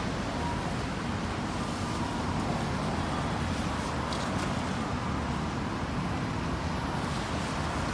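Steady city street noise: road traffic running by, an even rush with no breaks.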